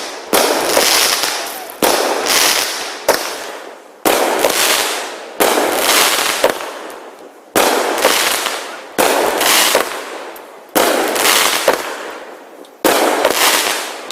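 A 19-shot consumer firework cake firing its shots one after another, about one every one to two seconds. Each shot is a sharp report followed by a hissing tail that fades before the next.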